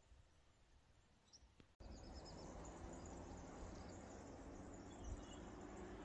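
Faint outdoor background with small, high bird chirps; about two seconds in, it cuts suddenly to a louder background of low rumble and frequent faint high chirping from small birds or insects.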